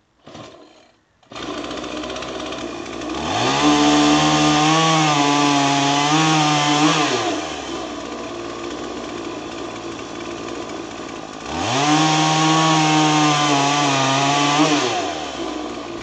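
Two-stroke chainsaw held in a log-cutting stand, starting about a second in and idling, then run up to full throttle twice for about four seconds each to cut through logs, its pitch wavering under the load of each cut before dropping back to idle.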